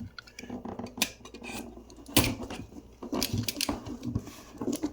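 Cardboard shipping box being handled: a series of knocks, taps and scrapes, the loudest about two seconds in.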